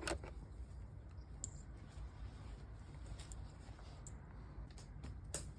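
Faint low rumble with a few light clicks, the sharpest one just after the start and another near the end.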